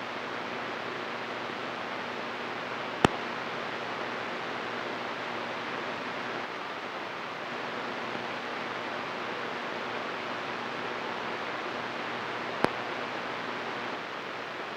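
CB radio receiver hiss on channel 28 with no station coming in, a steady band noise from the speaker. Two sharp cracks of static break it, about three seconds in and again near the end.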